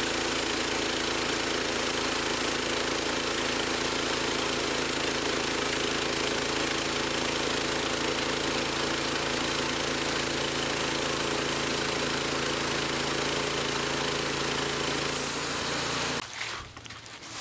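Portable bandsaw sawmill's engine running steadily at a constant speed. It cuts off abruptly about a second before the end.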